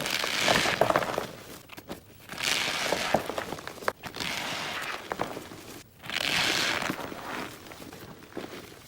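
Cornstarch-and-gym-chalk 'sandwiches' squeezed and crushed by hand: crunchy crumbling with a fine squeaky crackle, in three main presses a few seconds apart with quieter crumbling between.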